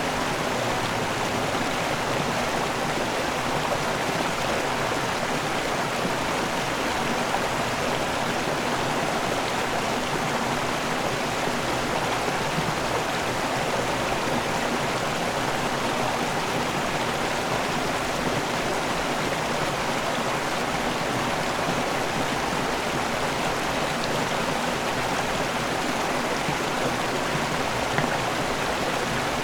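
River waterfall: water pouring and rushing steadily without letup.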